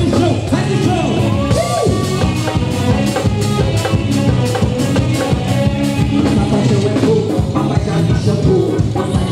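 Carnival band playing live: a steady, fast drum beat under a sung melody and band instruments.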